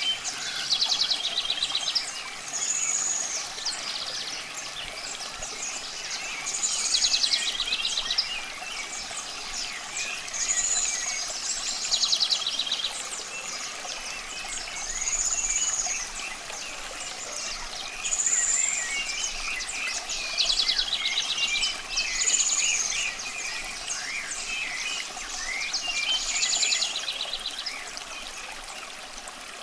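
A songbird repeats the same phrase every two to three seconds, a high arched note followed by a fast trill, while other birds chirp more softly. Underneath is a steady hiss of running water.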